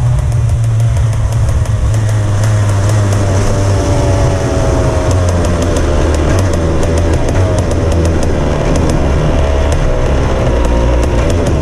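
Racing go-kart engine running at low revs, its pitch slowly sinking as the kart rolls along at slow speed.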